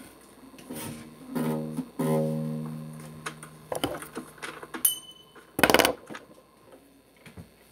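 A guitar chord is plucked twice, about one and a half and two seconds in, each ringing and slowly fading. Scattered light clicks follow, then a brief loud rustling burst near the six-second mark.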